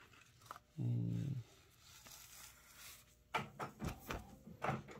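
A short hummed 'mm' about a second in, then a run of quick taps and rustles from a little after three seconds as a powder-covered DTF transfer film is tapped to shake off the excess powder.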